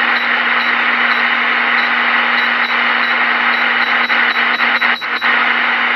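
Galaxy Saturn Turbo radio's speaker hissing with solid, unchanging static and a low steady hum, the receiver showing about 9 S-units of noise on every channel. The owner suspects a grounding problem with his new antenna. A few short clicks come about four to five seconds in.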